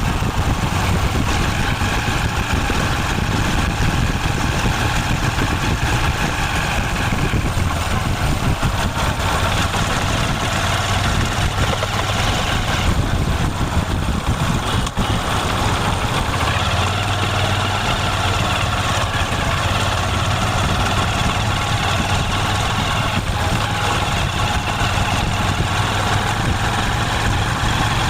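Motorcycle engine idling steadily after a kick start.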